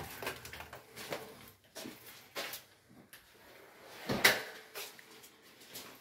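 Scattered light knocks and clicks of footsteps and an interior door being handled in an empty house, with one louder thump a little after four seconds in.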